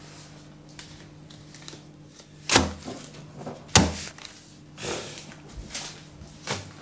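Playing cards slapped down by hand onto a table: two sharp, loud slaps about a second apart, then a few softer knocks.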